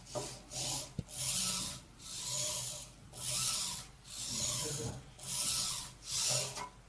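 Bittle robot dog's small leg servo motors whirring in rasping bursts about once a second as it does push-ups, lowering and raising its body. A single sharp click comes about a second in.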